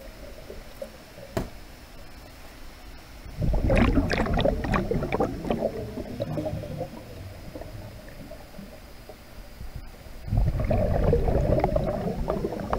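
Scuba diver breathing out through a regulator underwater, heard through a GoPro housing: two long bursts of bubbling, the first about four seconds in and the second about ten seconds in, with quieter stretches between.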